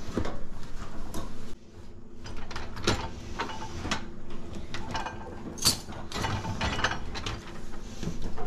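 Dishwasher door lowered and its wire dish racks slid out and pushed back on their rollers: rattling, with several sharp clacks.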